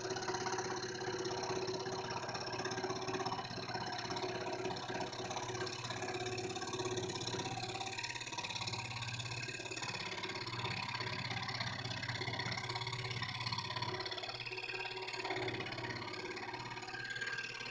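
Scroll saw running steadily, its reciprocating blade cutting through thin wood.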